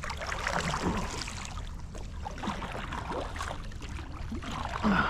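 Water sloshing and splashing around the hull of a small boat moving along a river bank, over a steady low rumble, with a louder thump near the end.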